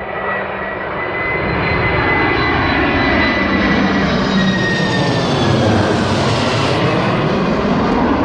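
Boeing C-17 Globemaster III's four turbofan jet engines at takeoff power, a loud steady roar with a high whine on top that drifts slightly down in pitch.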